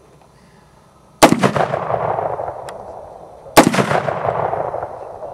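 Two gunshots about two and a half seconds apart, each followed by a long echo that fades away over a couple of seconds.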